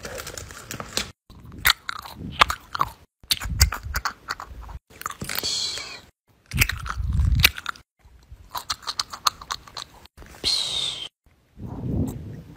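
Paper craft pieces being pressed, rubbed and picked at by hand, crinkling and crackling in irregular bursts of sharp clicks, with a few dull thumps of fingers on paper. The sound breaks off suddenly several times.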